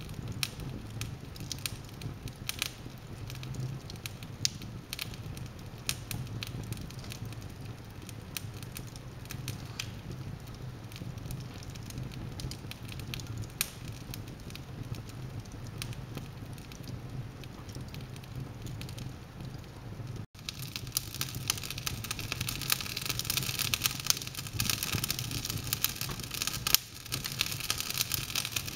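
Wood fire burning in an open fireplace, crackling and popping with frequent sharp snaps over a low steady hum. About two-thirds of the way in it breaks off for an instant and comes back louder, with more hiss.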